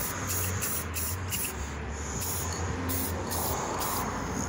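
Aerosol spray paint can spraying onto a metal lamp stand: a hiss in a run of short bursts with brief breaks between them.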